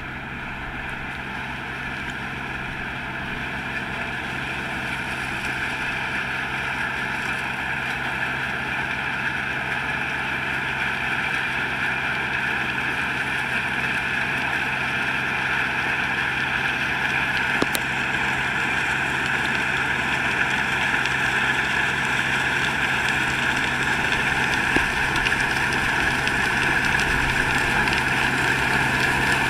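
Combine harvester with a six-row Gira Sole sunflower header, running steadily while it harvests dry sunflowers. The steady machine noise grows gradually louder as it comes closer.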